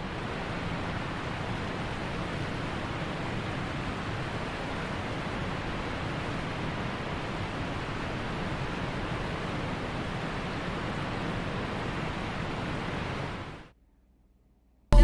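Steady, even rushing noise with no distinct events, cutting off near the end.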